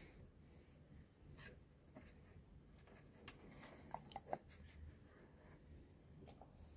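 Near silence with the faint rustle of a hand stroking and rubbing a dog's short fur, and a few small sharp clicks about four seconds in.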